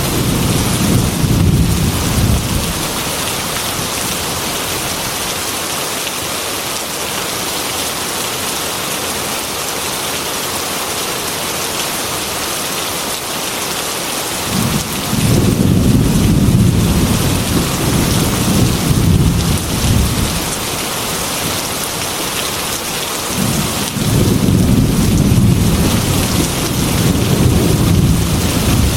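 Heavy rain hissing steadily on a metal roof, with thunder rolling three times: a rumble fading in the first couple of seconds, another about halfway through, and a third near the end.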